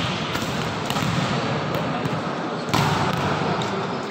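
Volleyballs being hit and bouncing off the court floor during spiking warm-ups, over a steady din of voices in the hall. The din gets suddenly louder about two and a half seconds in.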